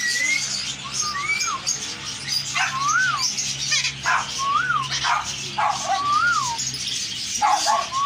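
Many caged birds chirping and chattering, with short harsh squawks and a clear whistle that rises and falls, repeated about every second and a half.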